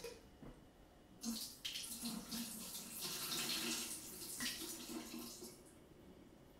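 Soaking water being poured out of a glass jar of cashews into a kitchen sink: a splashing stream starting about a second in and tailing off near the end.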